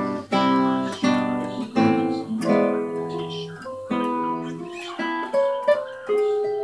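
Acoustic guitar music: chords strummed every half second to a second, each ringing out, giving way to single plucked notes near the end.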